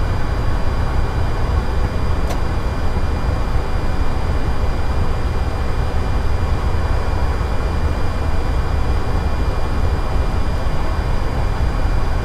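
Steady low rumble of airflow and engines inside the flight deck of an Airbus A330-900 airliner in flight, with a faint high steady whine under it. There is a single light click about two seconds in.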